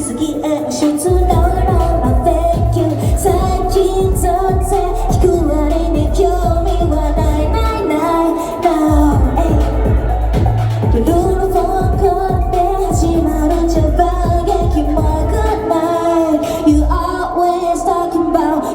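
Live Japanese pop song over loudspeakers: sung vocal lines over a heavy electronic bass beat. The bass drops out briefly about 8 seconds in and again near the end.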